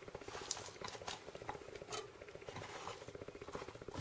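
Pieces of chopped rhubarb being pushed off a cutting board and dropped into a stainless steel saucepan: a few faint, scattered clicks and taps over a low steady buzz.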